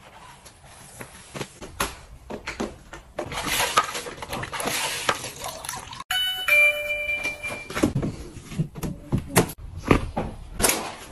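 Household rubbing and tapping sounds, with a short electronic chime of a few steady tones about six seconds in.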